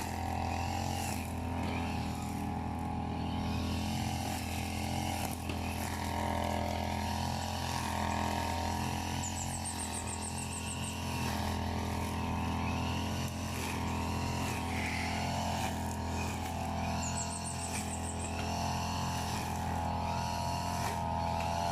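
Engine of a brush cutter (grass-cutting machine) running steadily at constant speed, with a short high rapid trill heard twice over it.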